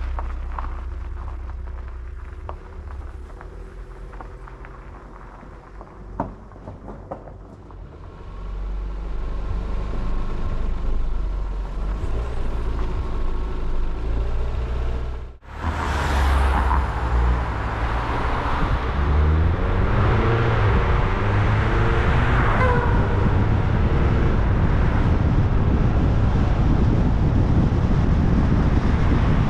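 Car engine running low, with a few sharp clicks. After a sudden cut about halfway, the car is driving along a paved road: engine and tyre noise with wind buffeting the microphone.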